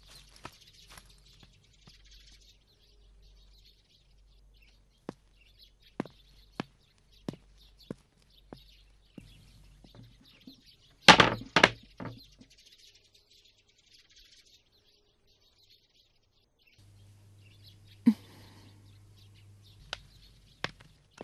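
Footsteps on a hard floor, spaced clicks, with a loud thunk about eleven seconds in.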